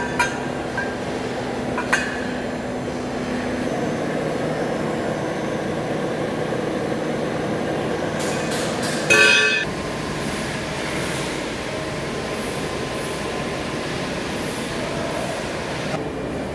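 Steady mechanical noise of workshop machinery, with light metallic clinks of steel pipes being handled near the start and one loud metal clang with a brief ringing about nine seconds in.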